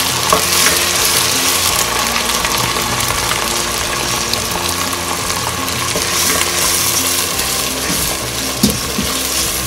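Ground onion paste sizzling steadily in hot oil with cumin seeds and curry leaves in a steel pot, with the light scrape of a wooden spoon stirring it in.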